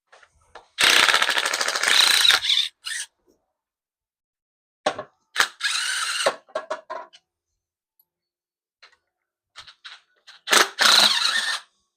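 Cordless power driver spinning engine bolts loose in three short bursts, the first about a second and a half long and the other two shorter.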